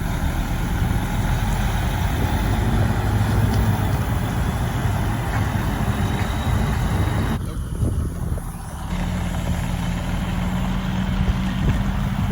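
Semi truck's diesel engine running at low revs. The sound thins briefly about seven and a half seconds in, then settles into a steadier hum.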